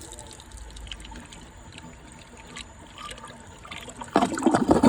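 1968 Rockport toilet trickling and filling with water after a flush that failed to clear a stuck dishcloth. Near the end comes a much louder burst of noise lasting under a second.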